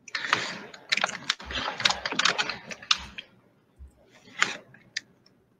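Typing on a computer keyboard: a dense run of key clicks for about three seconds, then a few scattered clicks.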